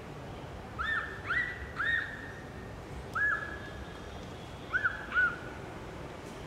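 A series of six short, high, whistle-like animal calls, spread over about five seconds. Each call rises and falls in pitch and then holds briefly. The last call is the loudest.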